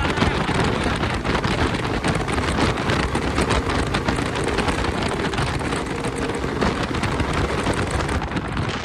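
Bajaj Pulsar RS200 with an aftermarket Akrapovic exhaust being ridden at speed: steady engine and exhaust noise with short crackles all through, mixed with wind rushing over the microphone.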